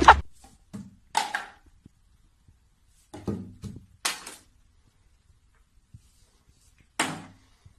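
A few short knocks and clatters, five or so spread out with quiet between: a plastic bottle pawed and nudged by a cat on a tiled bathroom ledge.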